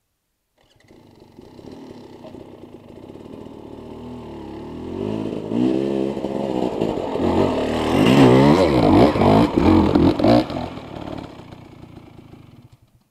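Dirt bike engine coming closer, then revving up and down in quick bursts as the rider throttles up a steep, root-covered rocky climb. It is loudest about eight to ten seconds in, then fades as the bike moves away up the slope and stops shortly before the end.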